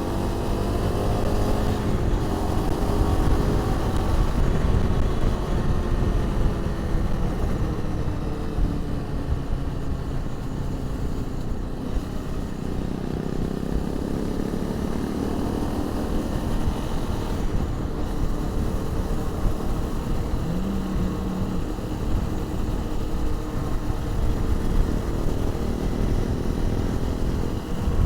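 Honda CRF250 Rally's single-cylinder engine under way off-road, the revs rising and falling, heard from inside the rider's crash helmet over a heavy low rush of wind and road noise.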